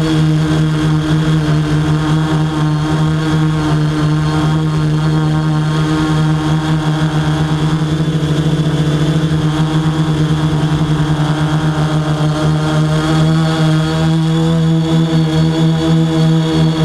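Quadcopter drone's motors and propellers whining steadily in a hover, a buzzing hum with a slight waver as the motor speeds shift.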